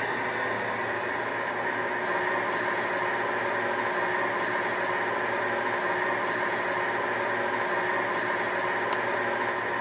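Model Class 68 locomotive's DCC sound decoder playing a recorded Class 68 diesel engine running steadily at idle through its small onboard EM2 speaker.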